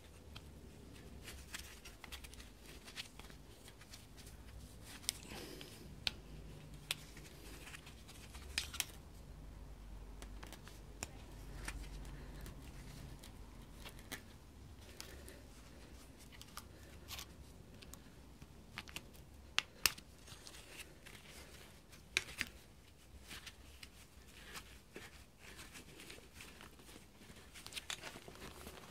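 Irregular small clicks and scrapes of a flat screwdriver prying at a hose retaining clip on a power steering pump, with gloved hands handling the rubber hose; a few clicks are sharper than the rest.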